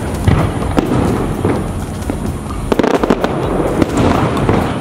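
Aerial firework shells bursting in a series of booms and crackles, with a quick run of bangs about three seconds in.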